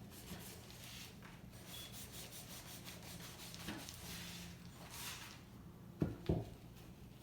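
Faint rubbing and rustling, with two sharp knocks close together near the end.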